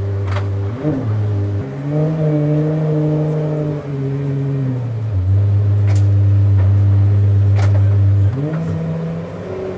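De Tomaso P72's supercharged V8 running while parked: it idles, gets a short blip about a second in, is held at raised revs for a few seconds, drops back to idle, and is blipped up again near the end. Two sharp clicks sound over the idle.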